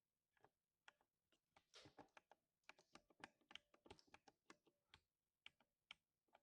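Quiet typing on a lubed 60% mechanical keyboard, with the deep thock of lubricated switches. Single keystrokes come first, then a fast run of presses in the middle, easing back to scattered presses near the end.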